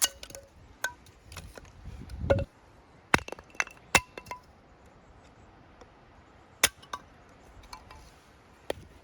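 Axe chopping and splitting small pieces of very dry firewood: irregular sharp chops and cracks, with the dry split sticks knocking together in short ringing clinks.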